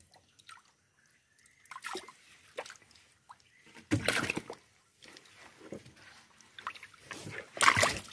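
Water sloshing and splashing in the bottom of a wooden boat as fish are handled in it, in irregular short splashes. There are a few small ones about two seconds in, a bigger one about four seconds in and the loudest near the end.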